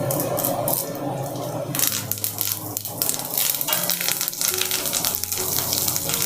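Tempering sizzling in a pan of hot oil, with garlic, onion and dried red chillies frying. The crackling gets busier about two seconds in, as fresh curry leaves go into the oil.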